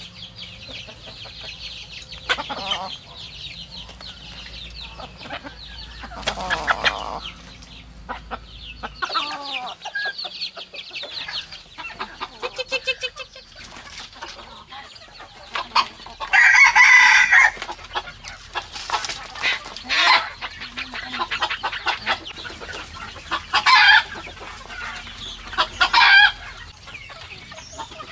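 Chickens clucking, with a rooster crowing loudly once about sixteen seconds in and several shorter loud calls after it.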